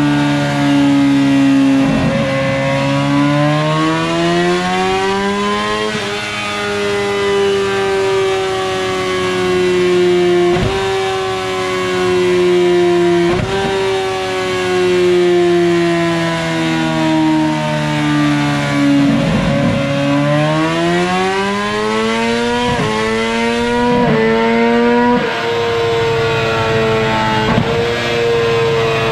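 Kawasaki ZX-10RR superbike's inline-four engine, through an Arrow WSBK full titanium exhaust, revving up and down on a dyno. Several brief cuts break the sound as the MoTeC quickshifter and auto-blipper change gear.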